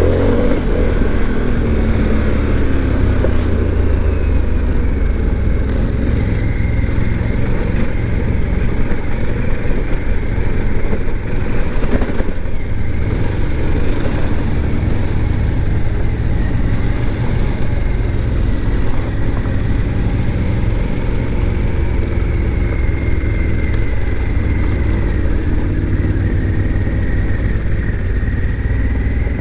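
Harley-Davidson Pan America's 1250 Revolution Max V-twin running steadily while riding a gravel road, its pitch rising and falling gently, with wind noise on the helmet-mounted microphone.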